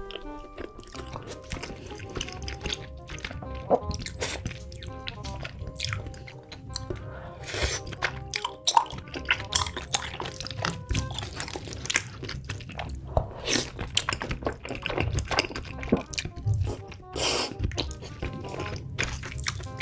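Close-miked eating sounds of creamy rosé tteokbokki and noodles: chewing and many short wet smacks and clicks of the mouth, over background music.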